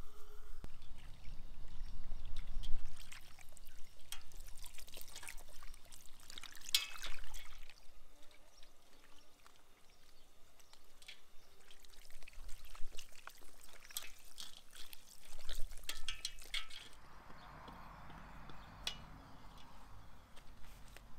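Water from a garden hose pouring and splashing into a metal bowl as raw quail are rinsed by hand, with scattered knocks and splashes, and a steadier rush of running water near the end.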